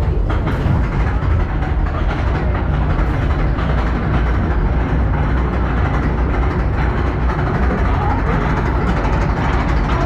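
Zamperla Windstorm roller coaster train climbing its lift hill: a steady low rumble and rattle from the lift and the train's wheels running on the steel track.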